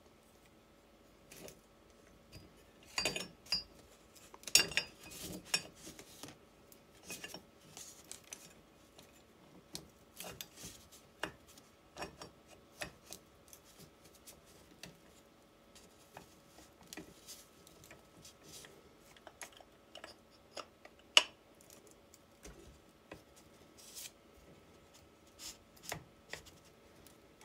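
Metal parts of a Fiat 126 starter motor being handled and fitted together by hand: scattered clinks and knocks of the cast housing and armature, with a flurry of clinks a few seconds in and one sharp click about two-thirds of the way through. A faint steady hum lies underneath.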